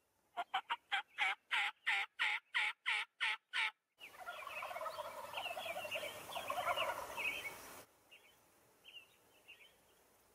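Wild turkeys calling. First comes a fast run of about a dozen separate yelping notes. Then several birds gobble over one another for a few seconds, cutting off suddenly, with a few fainter calls near the end.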